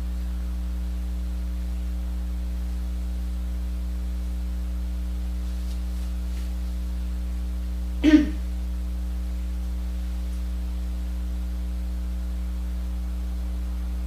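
Steady electrical hum, a low buzz with evenly spaced overtones, with one brief sharp sound about eight seconds in.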